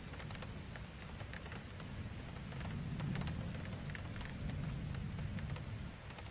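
Old mechanical alarm clock's movement clicking: light, faint clicks a few times a second, irregularly spaced, over a low rumble.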